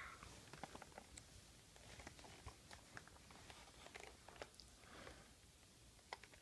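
Near silence: room tone with faint, scattered small clicks and crackles.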